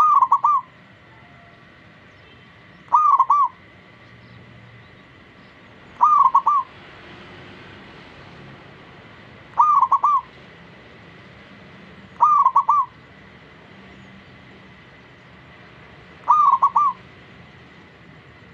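Zebra dove (perkutut) cooing: six short phrases of a few quick notes each, repeated about every three seconds.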